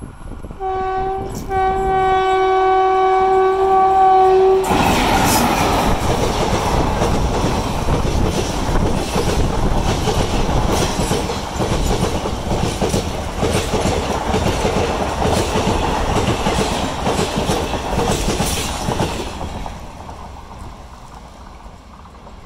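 Indian Railways electric locomotive sounding its horn, a short blast followed by a long one, as a passenger train runs through a halt at speed. Then the loud rush of the passing coaches with the rhythmic clatter of their wheels over the rail joints, fading near the end as the train goes away.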